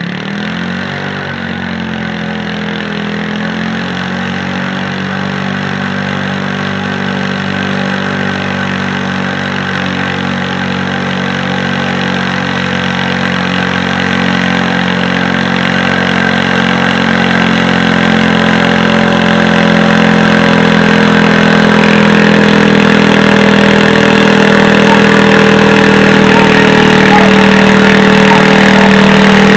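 Pulling garden tractor's engine running at steady high revs under load as it drags a weight-transfer sled down the track, growing steadily louder as it comes closer.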